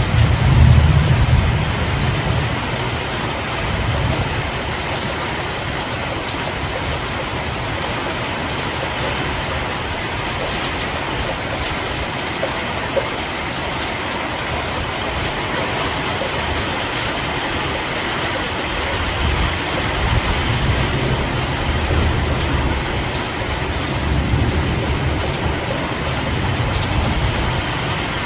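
Steady heavy rain hissing, with a low rumble swelling in and out at the start and again through the second half.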